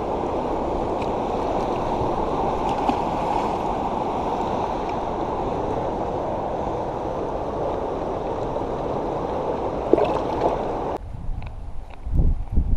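Steady rush of flowing water that cuts off abruptly about eleven seconds in, followed by a few low thumps near the end.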